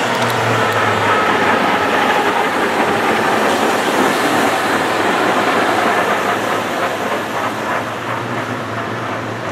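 Tatra tram set running past close by, steel wheels rolling on the street rails with a faint high whine, the sound easing off in the last few seconds as it moves away.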